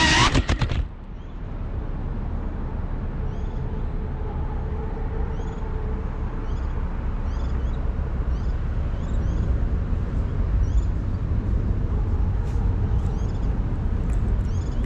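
An FPV quadcopter's motor whine cuts off abruptly about half a second in as the drone lands. What remains is a steady low rumble of city traffic, with a small bird chirping in short high notes about once a second through the middle.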